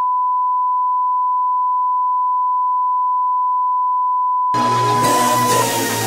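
A steady 1 kHz reference test tone, the beep that goes with colour bars, cut off about four and a half seconds in by music starting abruptly.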